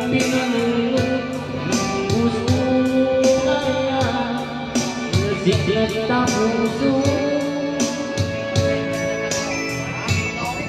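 A man singing karaoke into a microphone over a backing track with guitar and a steady beat.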